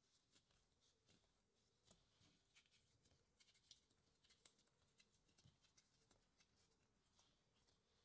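Very faint, irregular soft taps and rustles of hands folding and pressing bread dough into baguette shape on a wooden board.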